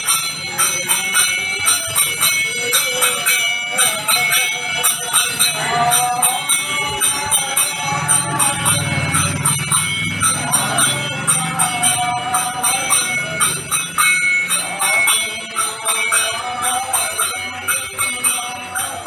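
Nam sankirtan devotional chanting: voices singing a wavering melody over a steady beat of small brass hand cymbals (khanjani), struck about three times a second.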